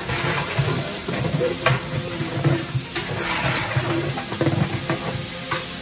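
Sliced onions sizzling as they fry in hot oil in a large aluminium pot, stirred with a long paddle that scrapes around the pot. A couple of sharp knocks come about a second and a half in and near the end.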